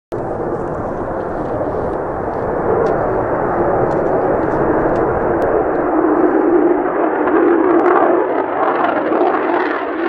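Mitsubishi F-2A fighter's single F110 turbofan at take-off power as the jet climbs away after lift-off: a steady jet roar that swells slightly toward the end, with strong wind buffeting the microphone.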